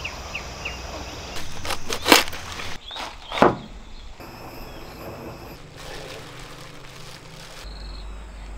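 Two loud, crisp crunching cuts, a cleaver chopping through a head of lettuce on a wooden chopping board, the first about two seconds in and the second about a second later. A few short bird chirps come before them.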